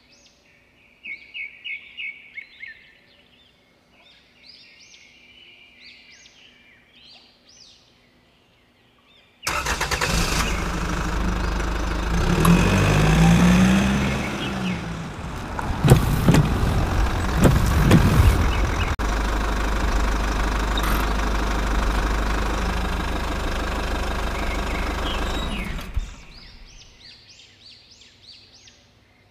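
Birds chirping, then a loud, noisy rumble that starts abruptly about a third of the way in, rises and falls in pitch once, and cuts off abruptly after about sixteen seconds, when the chirping comes back.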